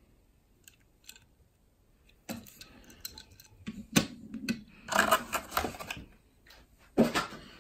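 Hot Wheels blister packs being handled: plastic bubbles and cardboard backing cards click and crinkle in a quick irregular series. It starts about two seconds in, after a nearly quiet start.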